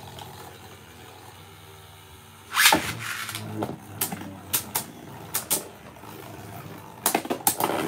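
Beyblade Burst spinning tops in a stadium: one top spins with a steady low whir, then about two and a half seconds in a second top is launched and lands with a loud scrape. Sharp clacks follow as the two tops collide, coming thick and fast near the end as the battle heads to a burst.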